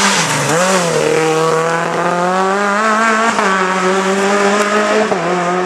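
Renault Clio rally car's engine at high revs as it powers out of a bend and away. The pitch dips briefly about half a second in, then holds high, with short breaks for gear changes about three and a half and five seconds in.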